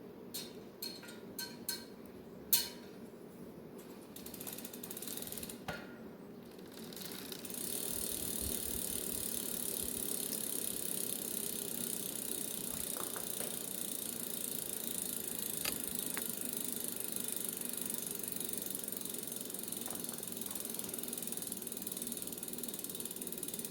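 A few sharp clicks, then from about seven seconds in a bicycle wheel spinning freely with its freewheel ratchet ticking rapidly and steadily as it coasts, while the trued wheel is checked.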